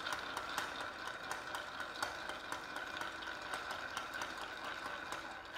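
Bar spoon stirring ice cubes in a glass mixing glass of vodka and vermouth, the ice clinking against the glass in a steady run of clicks, a few a second. The clinking stops at the very end as the stirring ends.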